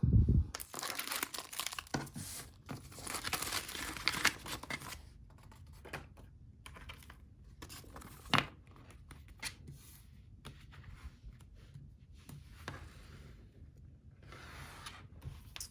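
Mail packaging being handled and torn: a stretch of tearing and crinkling in the first few seconds, then scattered light rustles and taps, with one sharp knock about eight seconds in.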